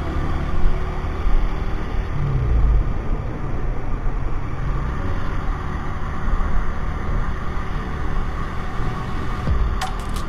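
Honda CG-125's single-cylinder four-stroke engine running steadily while riding, mixed with steady wind and road noise.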